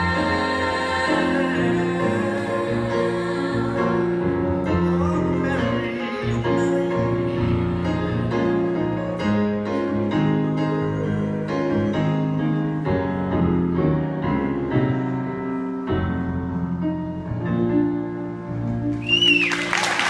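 Three singers performing a song in harmony with instrumental accompaniment over a PA system, their held chords and notes steady throughout. Near the end the song finishes, a whistle rises and falls, and applause breaks out.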